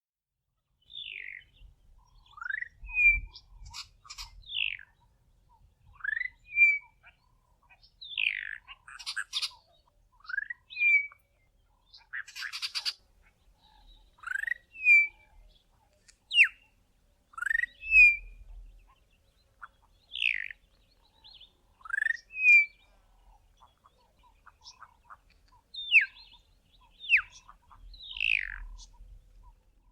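Juvenile Bokmakierie practising its song: short whistled notes every second or two, alternating rising sweeps, brief clipped notes and falling sweeps. This is the babbling practice of a young bird still working towards the adult call.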